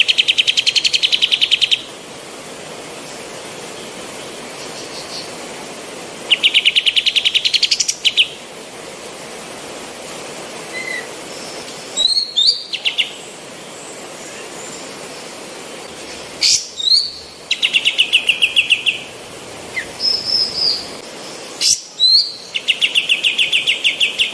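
Female kapas tembak singing: rapid rattling trills about two seconds long, four times, with short sharp up-and-down chirps between them, over a steady background hiss.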